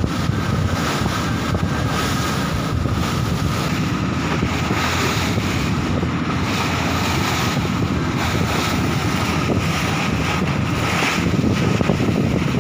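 Wind buffeting the microphone and water rushing and churning along the hull of a fishing boat under way, with the boat's engine running underneath. It is a loud, steady rush.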